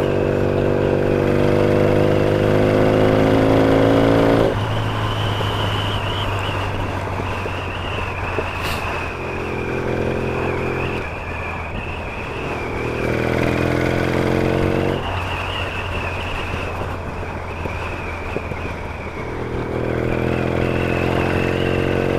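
Yamaha XS650 chopper's air-cooled parallel-twin engine pulling under throttle on the move, rising in pitch for about four seconds and then dropping off suddenly, followed by several shorter rising pulls. Steady wind and road noise runs underneath.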